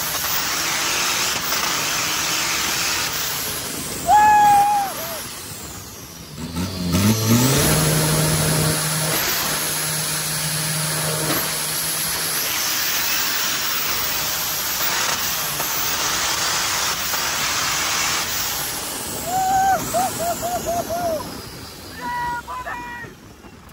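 A 500-horsepower turbo-diesel Toyota Hilux off-road drag truck running down a dirt strip, heard from inside its open, windscreen-less cab: a steady rush of engine and wind noise, with the engine rising in pitch about seven seconds in. Brief yells come at about four seconds and again around twenty seconds.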